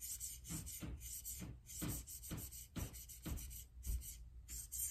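A 600-grit diamond plate on a KME guided sharpener stroked back and forth across an AUS-10 steel knife edge, about two short scraping strokes a second. The strokes work the burr so it flips to the other side.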